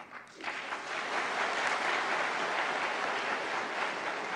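Audience applauding, steady clapping that starts about half a second in.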